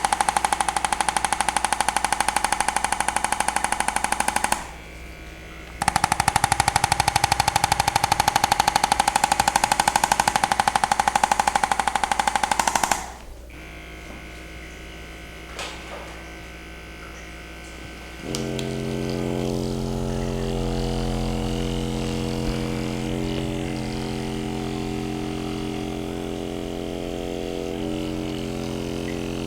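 A handheld electric therapy device running with a loud, rapid, even pulsing rattle. It stops for about a second near the start and cuts off suddenly about 13 seconds in. After a few quieter seconds a steady motor hum with several held tones starts and runs on.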